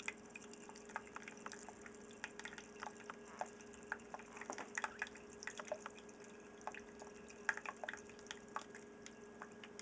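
Wort dripping and trickling from the brass spigot of a cooler mash tun into a plastic pitcher: faint, irregular drips and splashes with a steady low hum behind. The spigot is run slowly during vorlauf (recirculation) so the grain bed doesn't clog.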